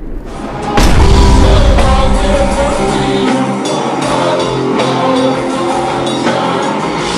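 Live rock band playing: drum kit, electric guitar and a singer, the music coming in with a sudden loud hit under a second in.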